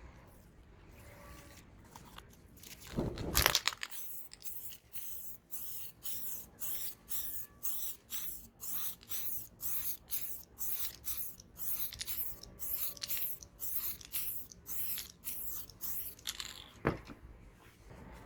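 Aerosol spray paint can hissing in a long string of short, quick bursts, about two a second, after one longer, louder blast; a single sharp knock follows near the end.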